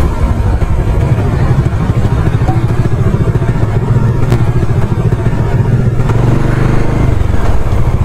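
Bajaj Dominar 400's single-cylinder engine running at low road speed under a steady rider's-eye haze of wind and road noise, its firing pulses even and unbroken.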